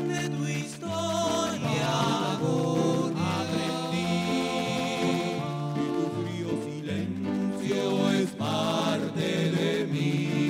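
A song playing: a singing voice over instrumental backing.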